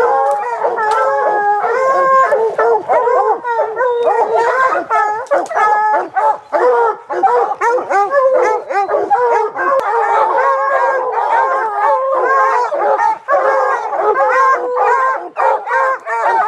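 A pack of bear hounds baying, howling and barking at once, many voices overlapping without a break, as they bay at the foot of a tree with a bear up it.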